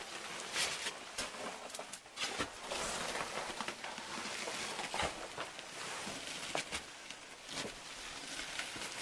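Jackets rustling and feet scuffing and crunching as people crawl and shuffle through a tight ice-cave passage, with many irregular sharp clicks and knocks.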